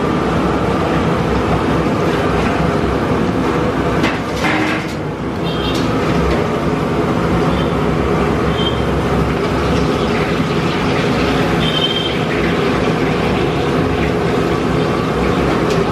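Peanut pakodi batter deep-frying in a large iron kadai of hot oil: a steady, loud sizzle over a continuous low rumble, with a few clicks of the metal skimmer about four to five seconds in.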